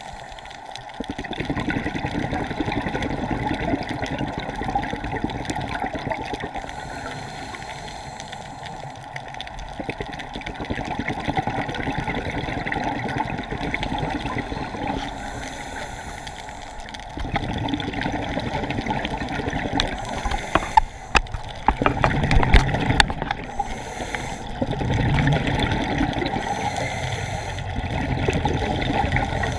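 Scuba diver breathing through a regulator, heard underwater: long gurgling rushes of exhaled bubbles with quieter gaps between breaths. A run of sharp clicks comes about two-thirds of the way in.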